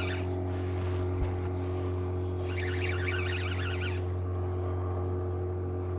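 Boat motor running with a steady low hum, joined twice by a warbling higher-pitched sound that comes and goes, and a single short knock about a second in.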